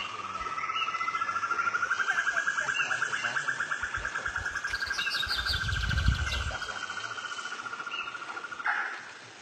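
A bird's long, rapid trill, held at one steady pitch that lifts slightly about two seconds in and stops shortly before the end. A brief low rumble comes about six seconds in.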